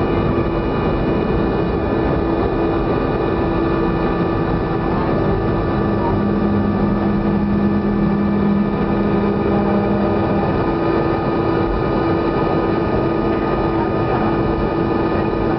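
Boeing 737 jet engines and airflow running steadily, with a constant low hum and faint high whines. A second, lower hum comes in about six seconds in and fades out about four seconds later.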